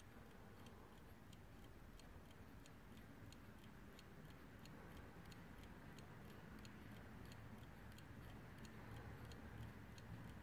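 Faint, quick, even ticking of a Warmink Dutch 8-day bracket clock's pendulum movement, the beats alternating slightly in strength like a tick-tock.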